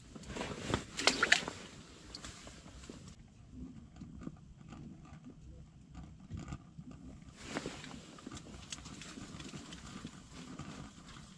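Close handling sounds from unhooking a fish and working an ice-fishing rod and line by hand: a loud burst of clicks and rattles about a second in, then scattered small clicks and taps, with another brief burst a little past halfway.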